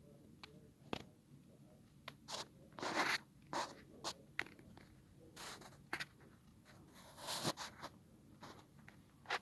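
Irregular scraping and rustling with sharp clicks close to the microphone, the loudest cluster about three seconds in and another about seven and a half seconds in, over a faint low background.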